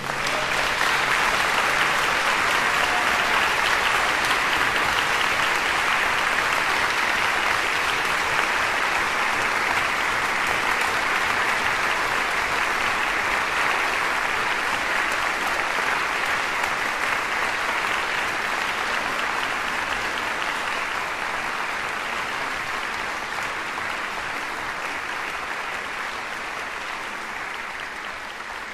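Audience applauding, starting at once and slowly fading over the second half.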